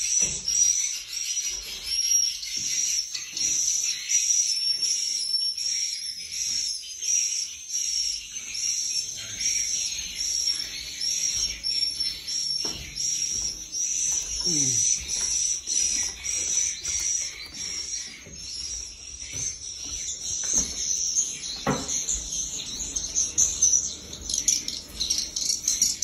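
Swiftlets twittering in a dense, high chirping repeated several times a second, with a few knocks in the second half.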